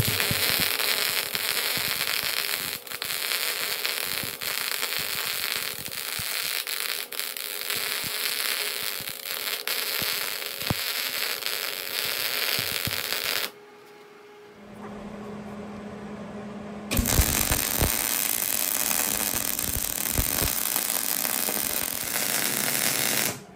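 Millermatic 185 MIG welder arc crackling and hissing as it lays a heavy bead on a cast-iron Dana 60 axle housing. The arc stops a little past halfway. A low steady hum follows for a couple of seconds, then the arc strikes again and crackles until just before the end.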